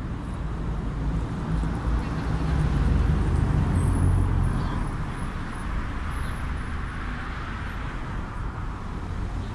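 Road traffic noise: a motor vehicle's engine and tyres passing, swelling to a peak about three to four seconds in and then fading to a steady rumble.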